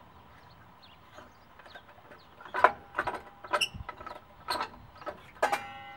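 Sheet-metal blade guard of a radial arm saw being worked loose and taken off: a quiet start, then a string of sharp metal clanks and knocks from about two and a half seconds in, the last one ringing briefly.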